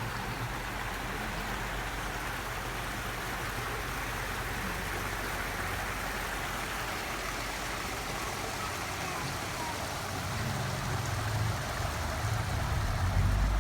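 Steady rushing noise like running water, with a low boat-motor hum that grows louder after about ten seconds.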